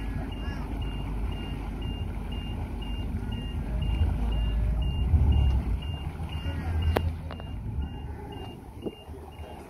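Stingray bowrider's engine running low at idle in gear as the boat creeps onto a drive-on lift, with a high electronic beep repeating steadily about three times a second over it. A sharp click comes about seven seconds in.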